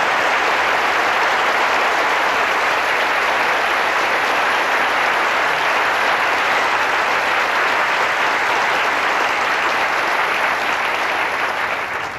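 Large audience applauding steadily, the clapping beginning to die away near the end.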